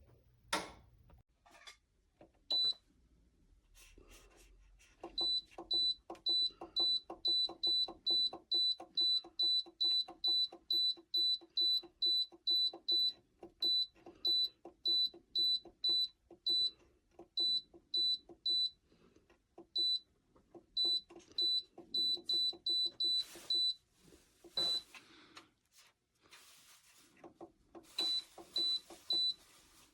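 Short, high electronic beeps from the Dreo oil-filled radiator heater's controls, coming about two to three a second in runs with brief breaks, as its buttons are pressed over and over. A few clicks come before the beeping starts, and there is some rustling noise near the end.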